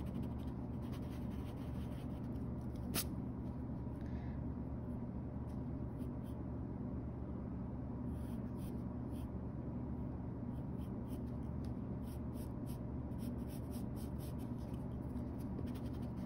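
Graphite pencil scratching on sketchbook paper in short, intermittent drawing strokes, over a steady low hum. A single sharp tick about three seconds in.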